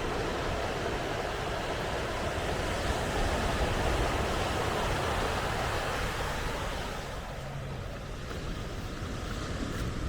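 Ocean surf washing up on the beach, a steady rushing noise that eases off about two-thirds of the way through.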